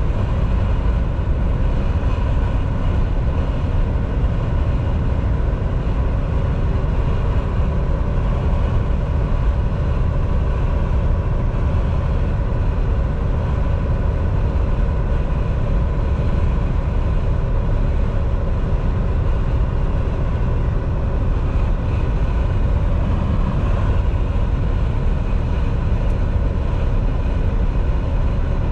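Inside the cab of a Volvo semi-truck cruising on the highway: the engine's steady drone mixed with tyre and road noise, with a constant hum and no change in speed or load.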